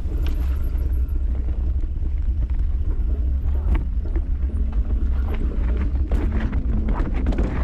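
A motor running with a steady low rumble, with scattered knocks throughout.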